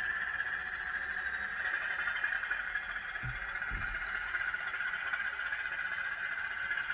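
N gauge model of a class 74 electro-diesel locomotive running with DCC sound from a small sugar-cube speaker: a steady high electric hum over the rattle of the train's wheels on the track. Two low thumps come about three and a half seconds in.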